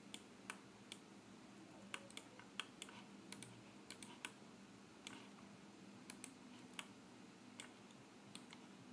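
Faint, irregular clicks of a computer mouse and keyboard, a few every second, over a low steady hum.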